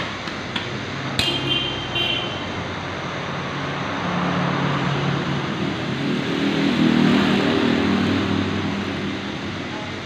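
A couple of sharp metallic clinks with a brief ring, about a second in and again at two seconds, over the hum of a motor vehicle engine that grows louder through the middle and eases off near the end.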